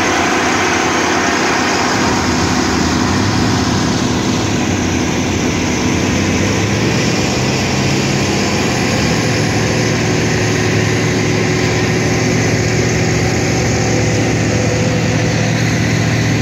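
Diesel engine of a crawler bulldozer running steadily under load while it tows a stuck pickup with a broken driveline out of deep mud. The engine note rises slightly about three seconds in.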